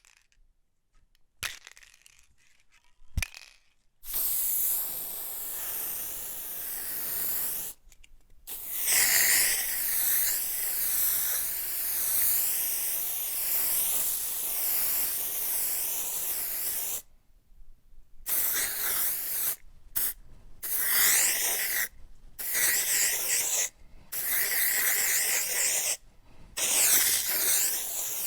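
Aerosol spray can spraying in bursts: two sharp clicks, then a hiss of about four seconds, a long hiss of about eight seconds, and then several shorter hisses of a second or two each. The hiss wavers up and down in tone throughout.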